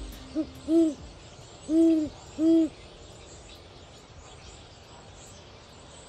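An owl hooting four times in the first three seconds: a short, quieter hoot, then three deep, longer hoots, each rising and falling slightly in pitch. A steady faint hiss runs underneath.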